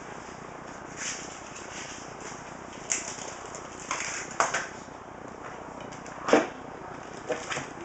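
A few scattered light clicks and clinks of small metal hardware being handled, most likely the motherboard screws and screwdriver being picked up, with one louder knock about six seconds in.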